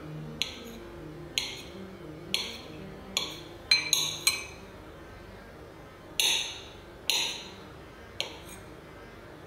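Kitchenware clinking: about ten sharp clinks, each with a short ring, at uneven intervals, with soft background music.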